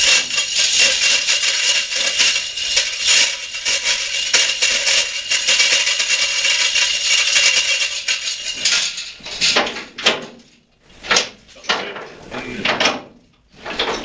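Sped-up scraping and rubbing of a small boat hull being turned over by hand while it hangs from a chain hoist. The noise is continuous for about eight seconds, then breaks into separate short scrapes with brief pauses.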